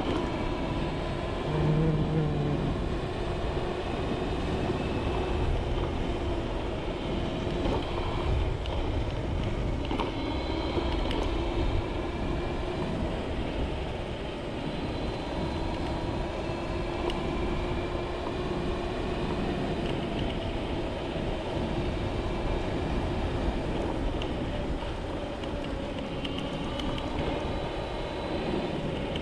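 Dualtron Spider electric scooter running at speed on a concrete path: a steady whine from the electric hub motors with several tones that drift slightly as the speed changes, over a constant rush of wind and tyre rumble.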